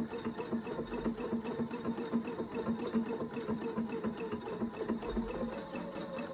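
Pfaff Expression 710 computerized sewing machine running steadily, stitching out a lettered name with a quick, even stitch-by-stitch rhythm.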